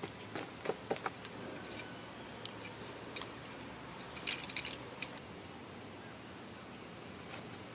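Scattered light clicks and knocks of hard objects being handled, the sharpest a short clattering cluster about four seconds in, over a faint steady high-pitched tone.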